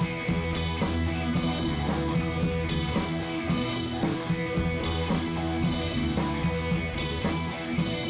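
Background music with guitar and drums.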